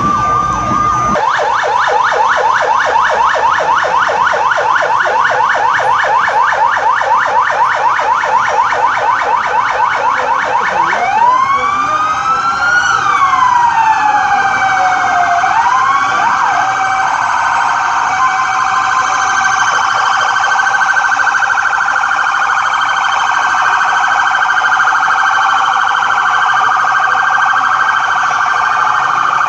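Emergency vehicle sirens: a fast pulsing siren pattern for the first ten seconds or so, then slow rising and falling wails overlapping, settling into a continuous high siren tone.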